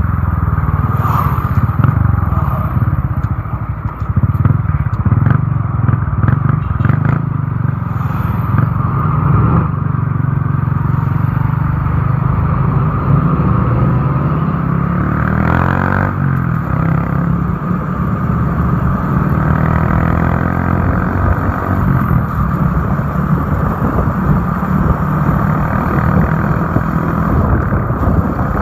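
A motorcycle running steadily at road speed, heard from on the bike, with constant engine and road noise.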